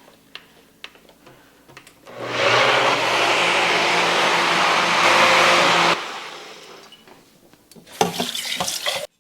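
Countertop blender motor starting abruptly and running steadily for about four seconds as it blends a smoothie of frozen fruit, kale and almond milk. It then switches off and winds down over a couple of seconds, followed by a few sharp clicks and clatters near the end.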